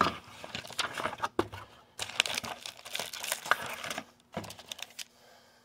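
Paper and plastic packaging rustling and crinkling as a cardboard box is unpacked: a paper card insert is lifted out and the plastic-sleeved mini chalkboards underneath are handled. The rustling is busiest in the middle and thins out near the end.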